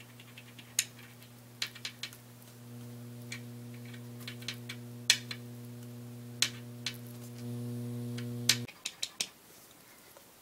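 Electrical hum from a homemade amplified speaker, a low steady buzz that steps louder twice as the volume comes up and then cuts off suddenly, with scattered sharp clicks and taps of hands handling the circuit. The microphone is not coming through: the owner finds that twisting the two wires together on his mono amp shorted its output to ground.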